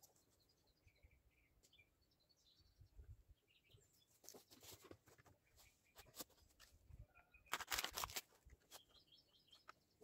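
Mostly near silence, with faint scattered bird chirps. Near the end comes a short cluster of clicks and rustles as a cut-off plastic sap bottle is pulled off a birch trunk where it was held with tape.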